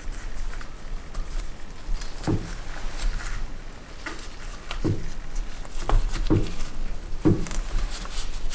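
Handling noise of gloved fingers pressing new rubber seals into the grooves of a motorcycle brake caliper held in a vise: rubbing and scattered soft knocks against the caliper and vise, about five louder knocks at uneven intervals.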